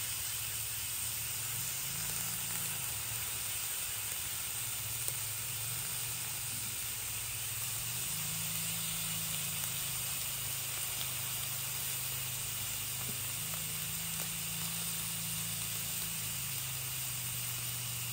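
Pork slices sizzling on the hot metal dome of a sindat (mookata) grill pan, a steady frying hiss with a low hum underneath.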